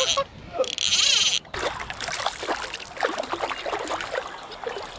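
A hooked trout splashing and thrashing at the water's surface close to the bank, in irregular splashes for several seconds. A short, loud rasp comes about a second in.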